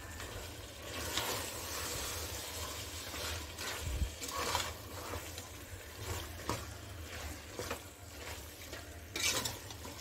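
Chicken and chopped tomatoes frying in a pressure cooker, with a spoon stirring and scraping through them over a soft sizzle and a few light knocks against the pot.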